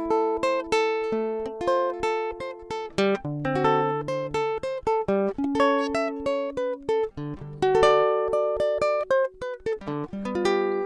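Background music: an acoustic guitar played in single plucked notes and small chords, each note starting sharply and ringing away.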